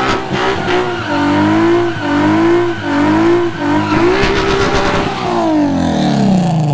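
Nissan 350Z engine revving high during a burnout, the revs bobbing up and down as the rear tyres spin and screech. Near the end the revs fall away as the car rolls forward.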